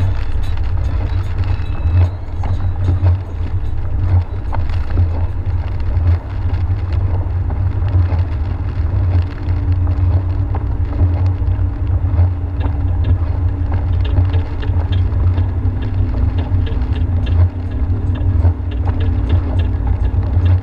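Steady low rumble of a car driving on a rain-wet highway, heard from inside the cabin: engine and tyre noise, with a faint steady drone coming in about halfway.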